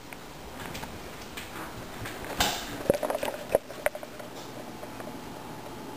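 A few scattered knocks and clicks, bunched together from about two to four seconds in, over a steady low hiss: footsteps and the handling of a handheld camera as it is carried through the rooms.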